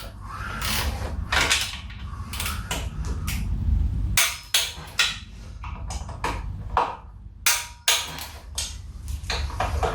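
Metal hand tools and parts clicking and knocking irregularly as the primary cover is fitted and its screws are tightened.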